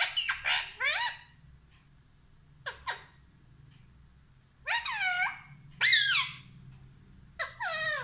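Indian ringneck parakeet calling in short, high calls that bend in pitch: a quick run in the first second, a single short call around three seconds, two calls around five and six seconds, and another near the end.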